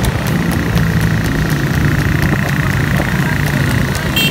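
Several small motorcycles running along together at a steady speed, their engines making a continuous drone, with a faint quick regular ticking over it.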